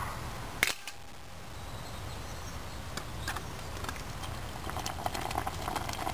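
A sharp metal click about half a second in as the simmer ring is fitted onto the Trangia spirit burner. Then a few light metal taps as the stainless billy can goes back on the stand, and the soup in it bubbling, growing louder near the end.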